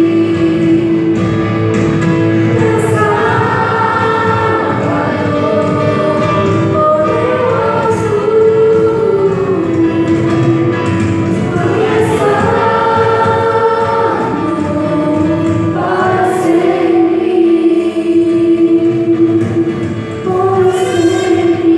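Children's choir singing a slow song in long held notes, phrase after phrase, over a steady sustained low note.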